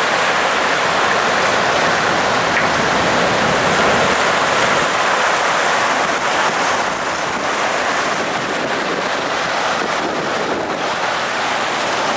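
Flooded river water rushing steadily as it pours over and under the railroad tracks, a loud, unbroken roar of water.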